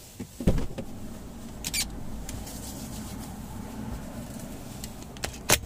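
Steady low rumble inside a car, broken by a few sharp knocks and clicks about half a second in and near the end, with a short hiss around two seconds in.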